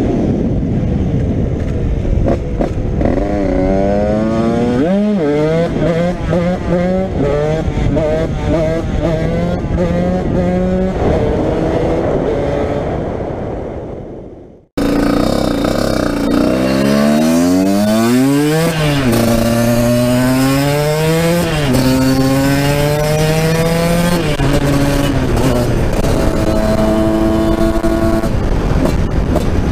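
Husqvarna SMS 125 two-stroke single-cylinder engine, breathing through a Dell'Orto 34 VHSB carburettor and an HGS expansion chamber, revving hard as the bike accelerates. The pitch climbs and drops back again and again, like upshifts through the gears. About halfway the sound fades out, then cuts back in on another series of climbing revs and shifts.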